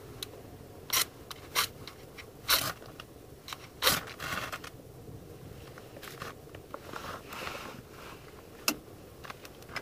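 A ferrocerium rod struck with a scraper, four sharp scrapes in the first four seconds, throwing sparks into wood-shaving tinder, which catches.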